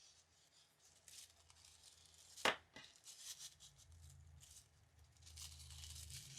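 Faint rustling and tearing of gift packaging being opened by hand, with a sharp click about two and a half seconds in.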